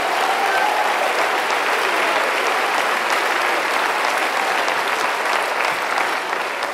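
Large congregation applauding steadily, with a few voices calling out in the first second or so.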